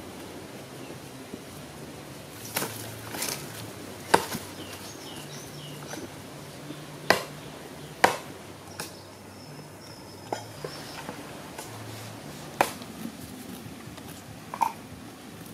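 Scattered sharp clicks and knocks, about nine in all, spread over the stretch against a steady low background noise.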